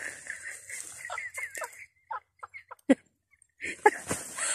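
A quick series of short, falling animal calls, about one every fifth of a second, the last and loudest about three seconds in.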